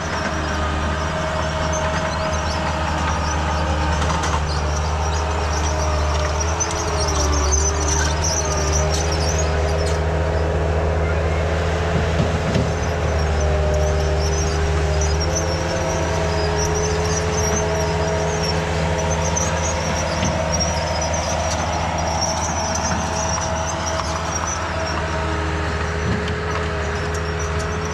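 Heavy diesel earthmoving machine working, its engine running steadily with a low drone and a slight shift in pitch now and then, and high-pitched squealing that comes and goes.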